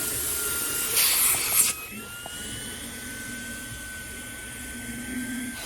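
Fanttik Slim V8 APEX cordless handheld vacuum running with a steady high-pitched motor whine over a rush of air. About a second in, the air rush grows louder for under a second, and after it the whine settles a little higher in pitch.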